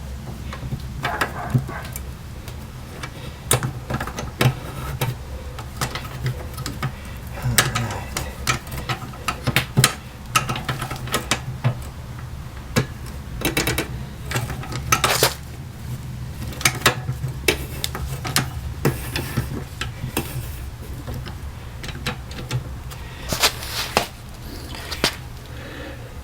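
Metal washer parts and hand tools clinking, clicking and knocking irregularly as a new tub support and basket drive are fitted back into a Whirlpool direct-drive washing machine, over a steady low hum.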